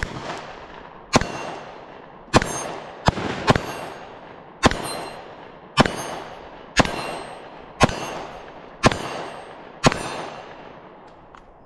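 Glock 43X MOS 9mm pistol firing eleven shots, mostly about a second apart with a quicker pair around three seconds in. Each shot has a long echoing tail.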